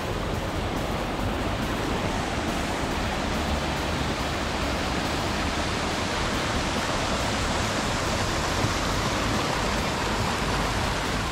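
Steady rush of fast-flowing water.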